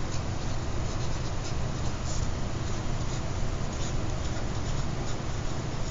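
Pen writing on a lined notebook page: soft scratching strokes of the tip across the paper, over a steady low background hum.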